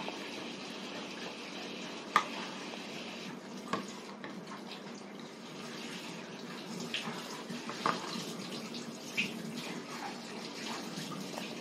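A steady rushing hiss throughout, with a few light clicks of a metal spoon against a plastic plate as a toddler scoops food.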